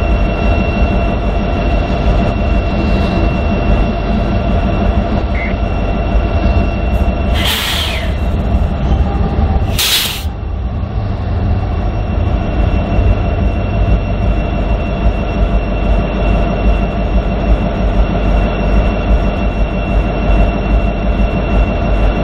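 BNSF diesel-electric freight locomotive standing at idle close by, a steady heavy rumble with a constant tone over it, while a grain train of covered hoppers rolls past on the next track. Two short, loud hisses of air come about seven and a half and ten seconds in.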